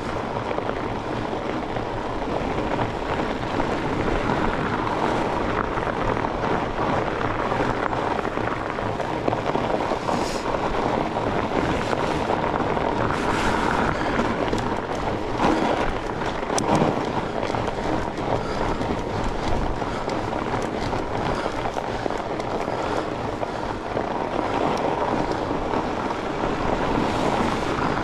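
Fat bike riding along a trail: a steady rumble of wide knobby tyres and rattling bike, with a few sharper knocks from bumps in the middle of the stretch.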